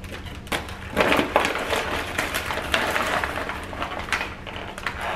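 Paper and plastic food packaging crinkling and rustling in irregular crackles as a roasted chicken is pulled out of its wrapping, loudest about a second in.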